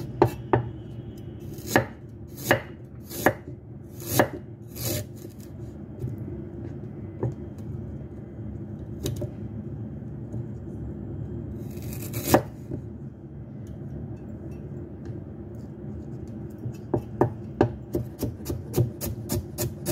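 Cleaver knocking on a thick round wooden chopping block as ginger is cut. Scattered single chops come in the first few seconds and one sharp chop about twelve seconds in, then fast, even chopping near the end at about five strokes a second.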